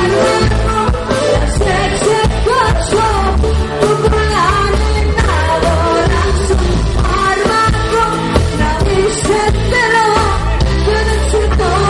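Live pop song: a woman sings into a microphone over a loud band with heavy bass.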